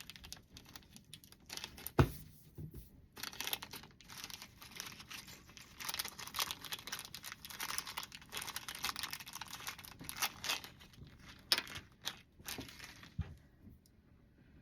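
Small plastic packet of slime add-ins being handled and opened: crinkling and crackling plastic with some tearing, and one sharp knock about two seconds in.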